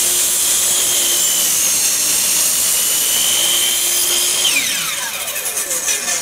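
DeWalt compound miter saw running at full speed as its blade finishes cutting through a wooden block. It is then switched off a little past the middle, and its whine falls steeply in pitch as the blade spins down. Near the end there is a sharp knock as the slowing blade kicks the offcut away.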